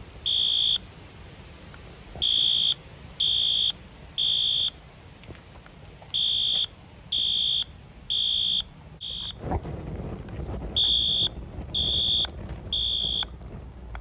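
Wheelock AS fire alarm horn/strobe sounding the temporal-3 evacuation pattern: high beeps of about half a second in groups of three, with a longer pause between groups, as the unit burns. Past nine seconds in it stutters with one short beep, then a last group of three, after which the horn stops: the device has shut down again, which the owner puts down to internal overheating protection. From about nine and a half seconds in, a low rushing noise of the flames flaring up runs under the beeps.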